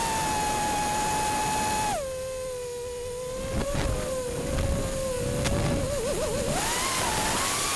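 A 5-inch 6S FPV quadcopter's T-Motor Blackbird V2 2800 kV motors and propellers whining as one strong tone. About two seconds in the pitch drops sharply as the throttle is cut for a dive. It wavers briefly, then climbs again near the end as the throttle comes back up.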